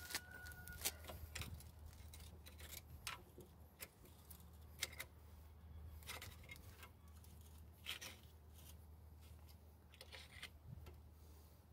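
Scattered faint clicks and scrapes of a screwdriver working against the front strut assembly and its fittings of a 2006 Nissan Sentra during strut removal, over a low steady hum.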